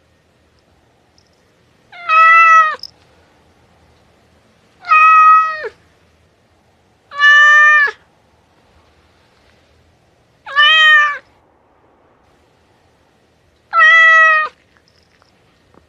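Domestic cat meowing five times, a few seconds apart; each meow is short and drops in pitch at the end.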